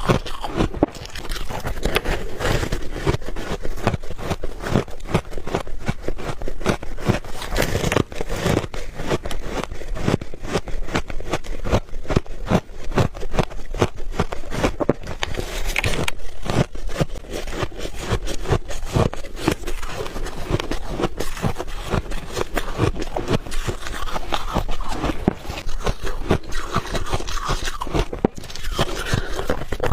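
Refrozen ice balls being bitten and chewed: a dense, unbroken run of crisp crunches and crackles.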